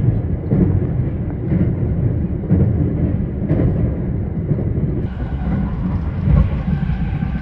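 Passenger train running on rails, heard from inside the carriage: a steady low rumble of wheels and car body.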